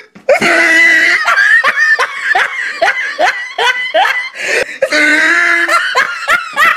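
Loud human laughter: a quick run of short, pitched bursts, each dropping in pitch.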